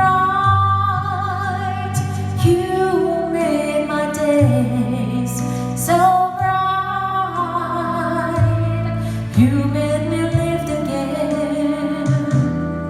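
Background music: a slow love song, with a singer holding long wavering notes over a steady bass line.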